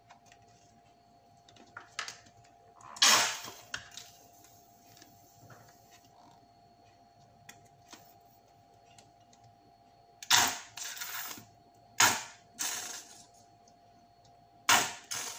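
Plastic squeeze bottle of Dijon mustard being squeezed into a measuring spoon, giving short sharp squirts. There is one about three seconds in and a cluster of five from about ten seconds on.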